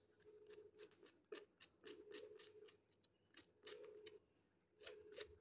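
A knife slicing thin rounds off a green gourd held in the hand: a quick, even run of faint, crisp cuts, about four or five a second.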